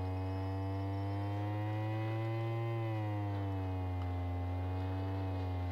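Loudspeaker driven by a function generator with a low, buzzy tone while a puddle of cornstarch-and-water oobleck sits on its cone. The pitch rises slightly a little before halfway and then settles back down.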